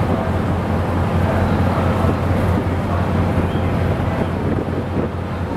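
A ferry's engines droning as a steady low hum, with wind buffeting the microphone on deck.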